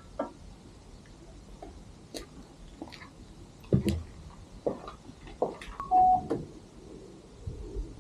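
A series of light clicks and knocks, irregularly spaced, like small objects being handled. About six seconds in comes a short steady beep-like tone.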